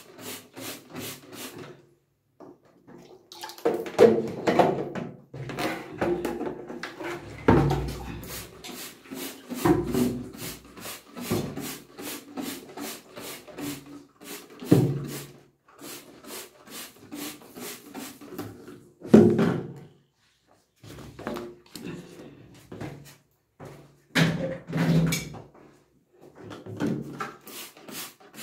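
Hand trigger spray bottle of cleaner squeezed over and over, a fast run of short squirts about four a second, spraying onto the bathtub. Louder knocks and rubbing come in between every few seconds.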